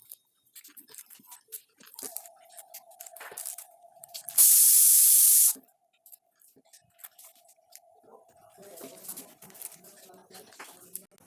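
Packaging being handled, with light crinkles and clicks, and a loud steady hiss lasting about a second midway that starts and stops sharply.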